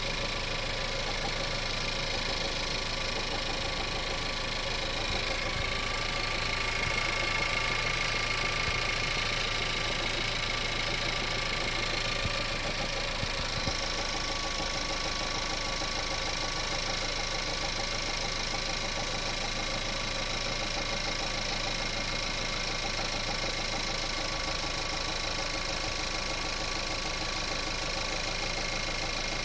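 Volkswagen 1.4 TSI (CZDA) four-cylinder turbo petrol engine idling steadily, still warming up, with a knock at idle that the owner says disappears in Drive. The sound gets a little louder about halfway through.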